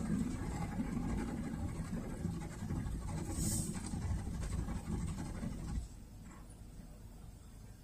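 Honda N-BOX's three-cylinder kei-car engine idling, heard from inside the cabin as a low rumble that stops abruptly about six seconds in. A brief faint scratch sounds about halfway through.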